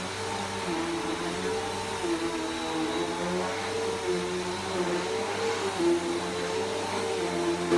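Bissell PowerForce Helix Turbo upright vacuum running steadily. Its motor hum dips slightly in pitch and recovers every second or two over a constant rush of air.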